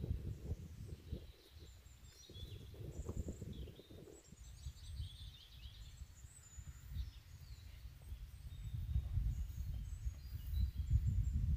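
Small birds chirping in short, scattered calls, over a low, uneven rumbling noise that grows louder over the last few seconds.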